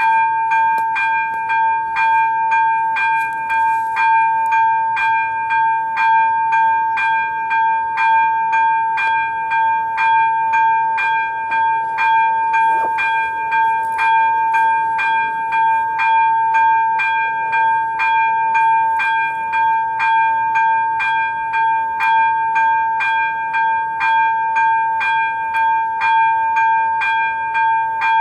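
Czech level-crossing electronic bell (ZV-02 on an AŽD 71 warning signal) switching on and ringing steadily, with a bright ringing tone struck about twice a second. The crossing has activated to warn of an approaching train.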